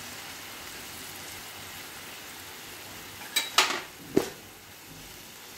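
Brinjal and potato gravy sizzling steadily in a frying pan. About three and a half seconds in come a few sharp knocks of a utensil against the pan.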